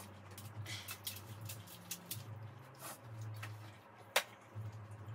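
Crisp puri shells cracking and crunching as they are broken open and eaten: a scatter of short sharp cracks, the loudest about four seconds in, over a low hum.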